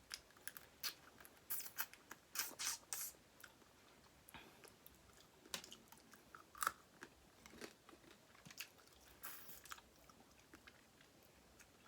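A person chewing seafood boil close to the microphone: faint, irregular mouth clicks and smacks, with a cluster of louder ones a couple of seconds in.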